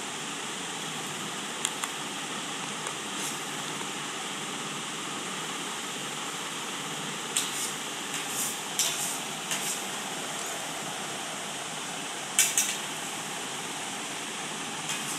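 Steady background hiss with scattered sharp clicks and clinks: two near the start, a cluster around eight to ten seconds in, and the loudest pair about twelve seconds in.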